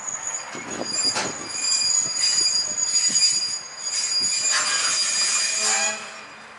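Freight container wagons squealing high-pitched as the train slows to a stop, brakes and wheels shrieking over a few light knocks. The squeal cuts off suddenly about six seconds in as the wagons come to rest.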